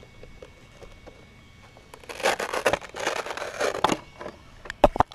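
Thin plastic RC buggy body shell being handled and pulled off, rustling and crinkling for about two seconds, then two sharp clicks near the end.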